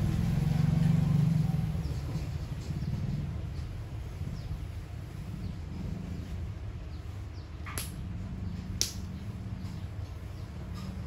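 Outdoor background: a low, steady engine-like hum that swells over the first couple of seconds and then eases off, with faint bird chirps. Two sharp clicks about a second apart come two thirds of the way through.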